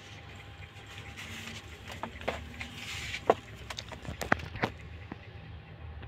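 Kittens suckling at their mother cat: a few soft, irregular clicks and smacks over a faint low hum.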